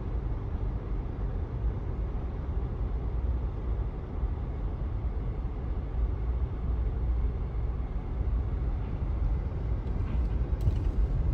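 Steady low rumble of a vehicle, heard from inside, with a faint click near the end.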